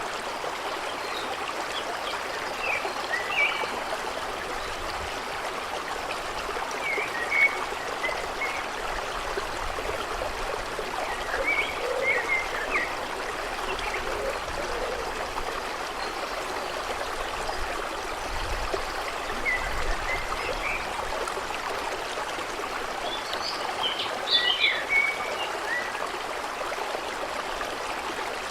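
A stream running steadily over stones, with small birds chirping in short scattered bursts, the busiest flurry of chirps near the end.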